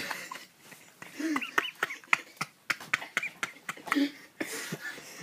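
Sharp hand claps as a man tries to catch a moth between his palms, about a dozen in irregular succession, mixed with short voice sounds.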